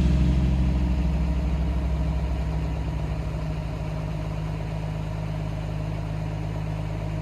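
The Chevelle SS396's 396 big-block V8 idling steadily; it is a bit louder for the first few seconds, then settles to an even level.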